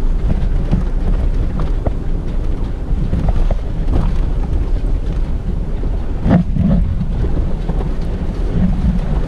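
Wind buffeting the microphone over the low rumble of a vehicle moving slowly along a rough, rocky gravel track, with scattered knocks and rattles from the bumps and a louder jolt a little past the middle.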